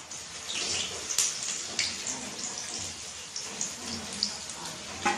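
Paneer pakodas sizzling in hot oil in a wok as they deep-fry: a steady hiss with many sharp crackles and pops. The pakodas are already golden and are being fried a second time.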